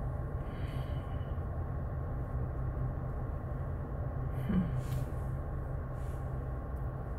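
A car idling at a standstill, heard from inside the cabin: a steady low hum.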